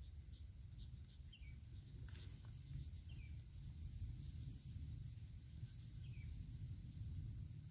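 Quiet outdoor ambience: a few short bird chirps sliding down in pitch, over a thin steady high-pitched insect drone and a low rumble.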